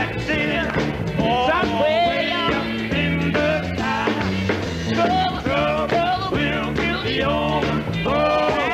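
Gospel quartet singing with instrumental backing: voices sliding and bending through drawn-out notes over a steady low bass line.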